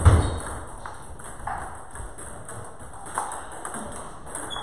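Table tennis ball being struck and bouncing: sharp clicks of the ball on paddles and table, a loud one at the start and a few lighter ones spaced a second or more apart.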